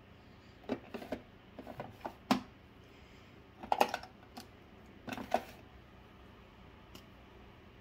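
Small hard plastic makeup items and tools clicking and clattering as they are handled, in four short bursts of light knocks over about five seconds.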